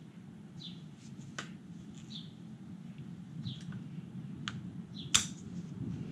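Scissors snipping plastic measurement strips flush on a Rhino-Rack roof-rack crossbar leg: a few sharp clicks, one loud snip about five seconds in. Short high chirps repeat about once a second over a steady low hum.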